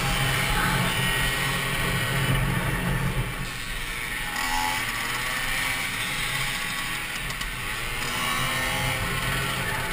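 Peugeot Fox 49cc two-stroke moped engine running flat out at race speed, heard onboard, with heavy wind buffeting on the microphone.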